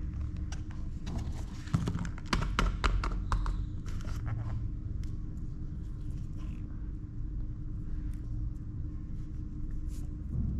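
Thin plastic mold tray crackling and clicking for a couple of seconds as the molded candy bun and patty pieces are popped out of it, then a few faint ticks as the pieces are handled with a plastic knife, over a steady low hum.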